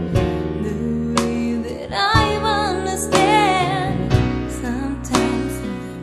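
A slow, tender song: sustained instrumental chords with a wavering sung or played melody line over them, and a soft beat about once a second.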